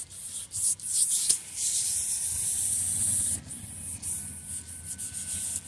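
Hand wet-sanding of a plastic headlight lens: sandpaper rubbing back and forth over the lens in uneven strokes, a gritty scratching hiss. Little water is used, so the paper bites and stays audible rather than being drowned out.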